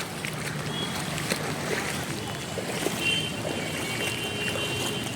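Steady rush of floodwater.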